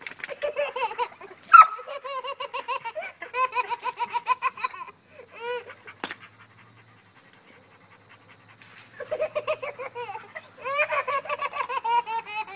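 A baby laughing in quick, high-pitched bursts of giggles, with a quieter pause of a few seconds in the middle.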